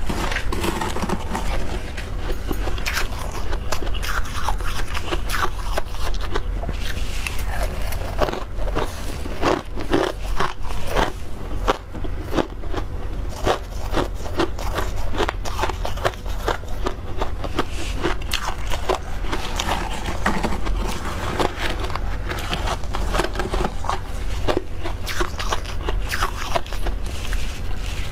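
Close-miked crunching and scraping of soft freezer frost being bitten and chewed, a dense run of irregular crackles with no steady rhythm.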